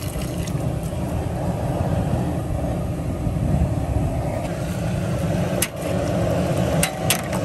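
Steady rushing noise of a propane burner under a large crawfish-boil pot of water at the boil, with a few sharp metallic clicks near the end.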